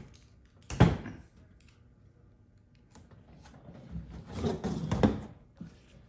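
Hollow knocks and scraping from a plastic recycling bin being handled on a tabletop: a sharp knock about a second in, then a few seconds of scraping and rustling ending in a loud knock as the bin is turned onto its side.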